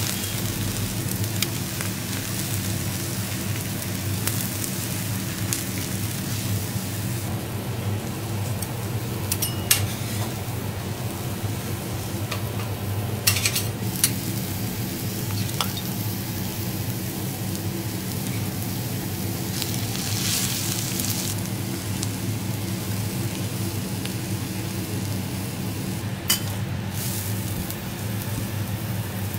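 Shrimp and its juices sizzling steadily on a hot steel teppanyaki griddle. The metal spatula and knife clink and scrape against the griddle plate a few times, about ten seconds in, around thirteen to fourteen seconds, and near the end. A steady low hum runs underneath.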